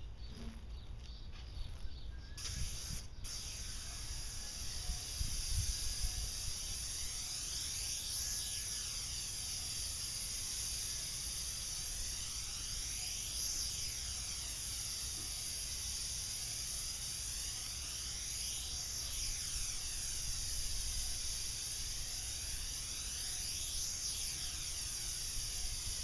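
Airless paint sprayer's gun, on a long extension pole, spraying paint onto a garage door: a steady high hiss that starts about two seconds in, stops for a moment about a second later, then runs on unbroken.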